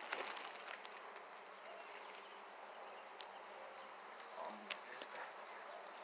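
Honeybees buzzing faintly around an open hive, steady throughout, with a few light clicks scattered through it.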